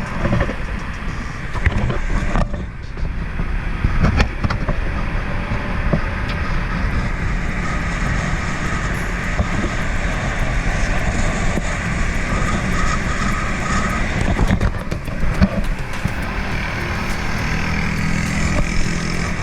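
Loud, steady road noise with motor-vehicle traffic, a constant rumble heavy in the low end.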